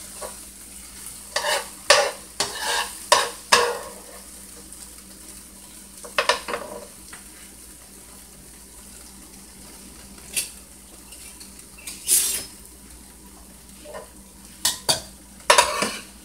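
Metal tongs scraping and clinking against a nonstick frying pan as browned beef short ribs and sautéed onions and green peppers are lifted out, over a faint sizzle from the pan. A quick run of six or seven scrapes comes in the first few seconds, then single clinks every few seconds.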